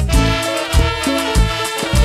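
Live band playing a Latin-style instrumental passage: trumpets over bass and drum hits.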